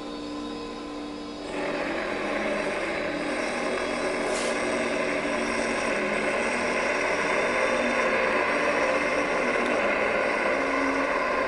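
Electronic sound-art drone from a video-art installation: a dense, noisy wash with many held tones. It jumps louder about a second and a half in and then slowly builds.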